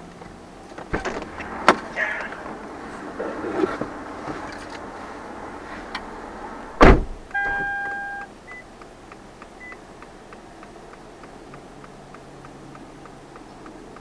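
Inside a car just after a minor collision: a few knocks and rustles, then a loud thud about seven seconds in. A short two-tone electronic car chime follows, then a steady flasher ticking about three times a second.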